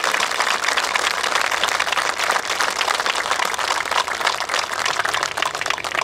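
Crowd applauding: many people clapping at a steady level.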